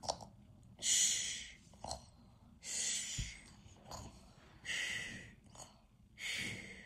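A child doing pretend snoring: four loud, breathy exhales about two seconds apart, acting out falling asleep.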